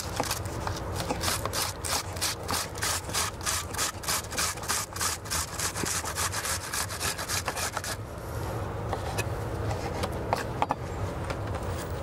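Onion being grated on a handheld metal grater: quick rasping strokes, about three a second, which pause about eight seconds in and start again near the end.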